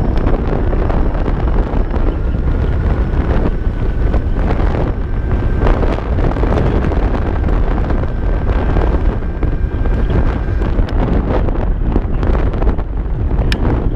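Heavy wind buffeting the microphone on a moving Kaabo Mantis Pro electric scooter, a steady low rumble. A faint thin whine, typical of the scooter's hub motors, rises slowly in pitch through most of it. A sharp click comes near the end.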